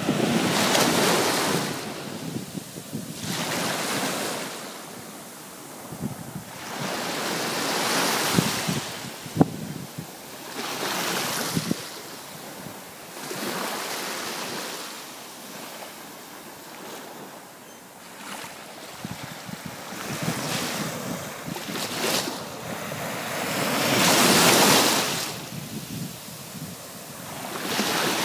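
Small waves breaking on a sandy shore and washing up the beach, the surf rising and falling in swells every few seconds, with wind buffeting the microphone. A single sharp knock about nine seconds in.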